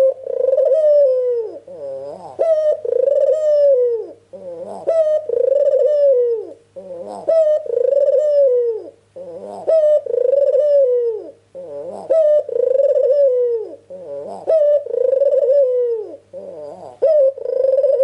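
A white Barbary dove (puter) cooing over and over, about one call every two and a half seconds. Each call is a short note followed by a long rolling coo that falls in pitch at its end.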